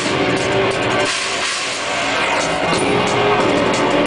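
A live rock band playing loudly: a drum kit with cymbal hits over electric guitar.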